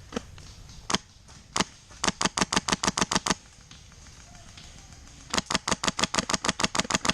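Airsoft guns firing. Two single shots come first, then a rapid burst of about a dozen shots at roughly ten a second. After a pause of about two seconds a longer burst at the same rate follows.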